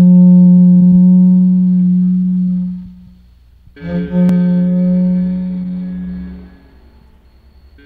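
Long indigenous wind instrument, a tube bound in woven strips, blown in long low droning notes. One held note fades out about three seconds in, and after a short gap a second note sounds and fades again.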